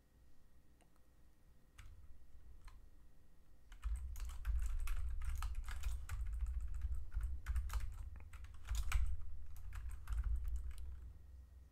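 Computer keyboard typing: a few single keystrokes, then a fast, steady run of typing from about four seconds in that stops shortly before the end.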